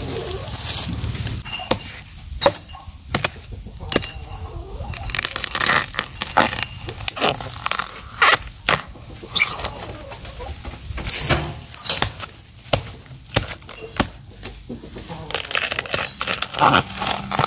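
Knife chopping and prying at the base of bamboo shoots: irregular sharp chops, about one every second or two, with dry bamboo leaf litter rustling and crackling between them.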